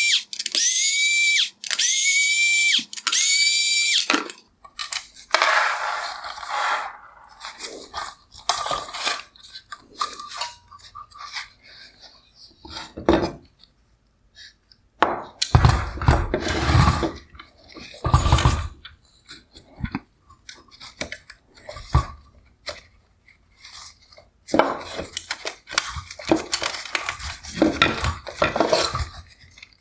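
Electric screwdriver with a T20 Torx bit running in several short whining bursts over the first few seconds as it backs out the screws holding the headlight projector to its bracket. After that come irregular clicks, clatters and knocks of plastic and metal headlight parts being handled and set down.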